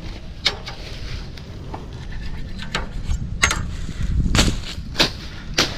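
A machete slashing through weeds and vine growth, a series of sharp swishing cuts about one or two a second, over a low wind rumble.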